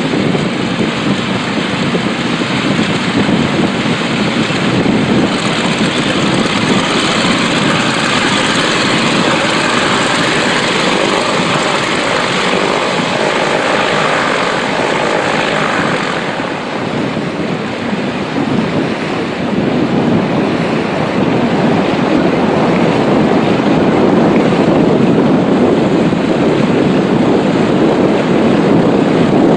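Grumman G-164 Ag Cat seaplane's engine and propeller running loud and steady. It eases slightly about halfway through, then builds louder again toward the end.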